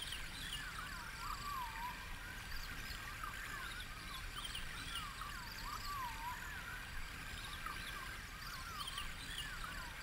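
Sampled rainforest ambience playing from a tracker module: repeated swooping, bird-like whistled calls over a steady hiss and low rumble.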